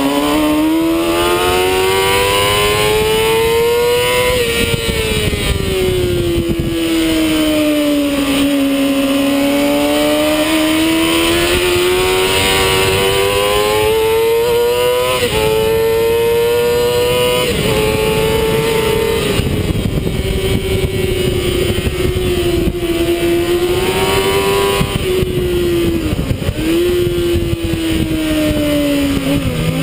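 Sport motorcycle's engine at racing pace, recorded on board: the engine note climbs and sinks through the corners and drops suddenly at several gear changes, over a constant rush of wind on the microphone.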